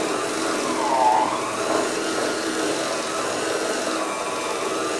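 Handheld electric mixer running steadily, its beaters whirring through a thick cream cheese and peanut butter mixture in a small bowl. The motor's whine dips in pitch briefly about a second in.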